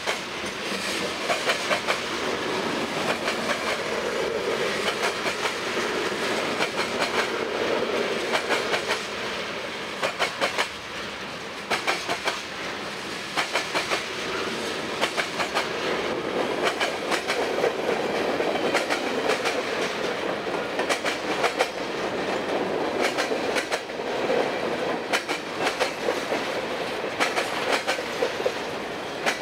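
Freight cars of a long train, tank cars and then empty centerbeam flatcars, rolling past. Their steel wheels clack over the rail joints in repeated clusters over a steady rumble.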